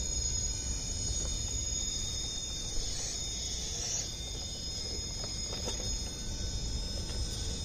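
RC rock crawler's electric motor and gearbox whining steadily as the truck climbs rock, the high whine shifting slightly about three to four seconds in, over a low rumbling noise.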